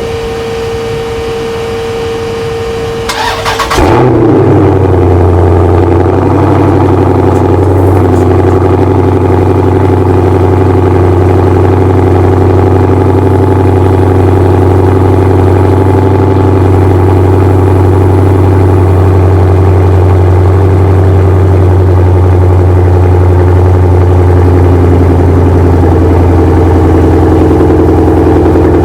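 Dodge Charger Scat Pack's 6.4-litre (392) HEMI V8 cold starting through a muffler-deleted exhaust with factory resonators and cats. A steady whine runs for about three seconds, the engine fires with a loud bark, and it then settles into a loud, deep, steady cold-start fast idle.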